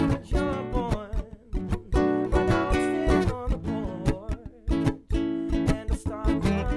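Acoustic guitar strummed in a steady rhythm, with a man's voice singing over it.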